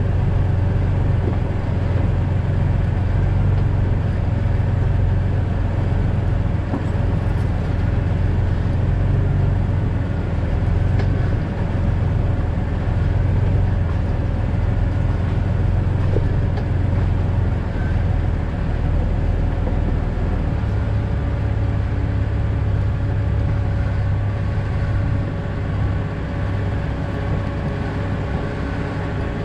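2000 Jeep Cherokee XJ driving, its engine and road noise making a steady deep drone. About two-thirds of the way through, the low drone shifts down and the sound gets a little quieter.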